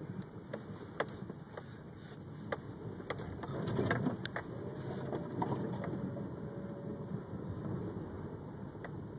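Car driving on a snowy road, heard from inside the cabin: a steady low rumble of engine and tyres, with a few scattered light clicks at irregular times.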